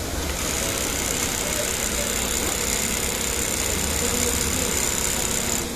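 Industrial single-needle lockstitch sewing machine running steadily as it sews piping onto a facing through a folder attachment, with a high motor whine that starts just after the start and stops shortly before the end as the machine halts.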